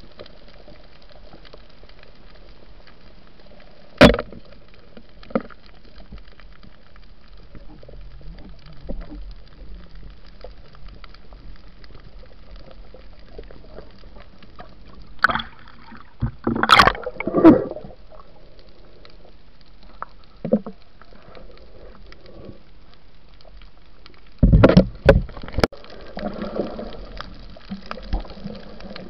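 Muffled water sound picked up by an underwater camera: a steady hiss broken by a sharp knock about four seconds in, then two bursts of splashing and bubbling, one midway and one near the end.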